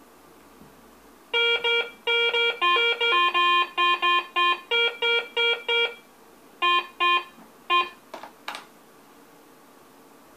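Garrett ACE 350 metal detector sounding a quick run of short beeps, about three a second, jumping between a low tone and a higher one as a target passes over the coil at zero discrimination. Three more beeps and a couple of short sliding chirps come near the end. The low, broken tones signal an iron target.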